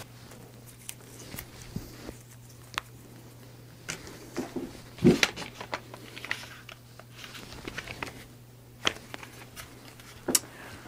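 Scattered light clicks and taps of an AR-15 rifle being handled and turned over, with one louder knock about five seconds in, over a faint steady low hum.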